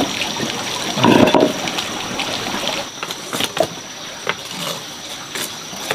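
Water splashing and rushing, loudest about a second in, followed by a few scattered knocks of a pot or utensils.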